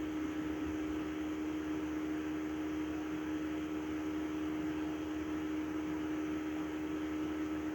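Steady electrical hum on one constant low pitch, over an even fan-like hiss from a small motor or electrical device running.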